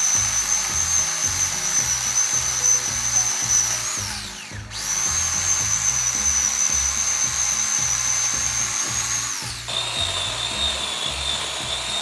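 Electric chainsaw cutting a log in three runs, its high motor whine held steady under load and spinning down with a falling pitch each time the trigger is released, about four and about ten seconds in; the third run is lower in pitch. Background music plays underneath.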